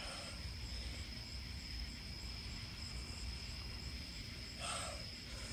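Crickets chirping faintly and steadily, a high drone with soft chirps about three times a second, over a low rumble. A brief soft rustle comes near the end.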